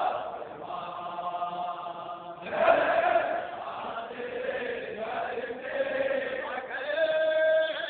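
Unaccompanied male voice chanting a noha, the Shia mourning lament, in long held notes. A louder phrase comes about two and a half seconds in and another near the end.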